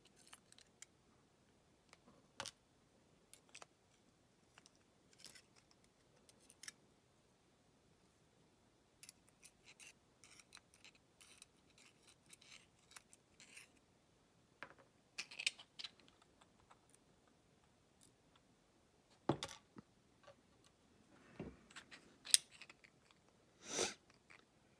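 Small metal lock parts, driver pins and springs from a disassembled pin-tumbler lock, being handled and sorted: scattered faint clicks and light ticks with pauses between them, and a few louder clicks near the end.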